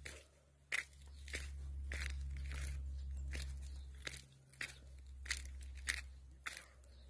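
Footsteps crunching over ground strewn with debris and fragments, at a steady walking pace of about one and a half steps a second, over a steady low rumble.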